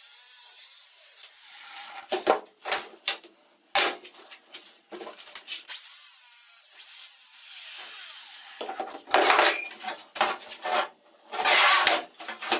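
Irregular scraping and rubbing strokes of tool work, in uneven bursts with short gaps.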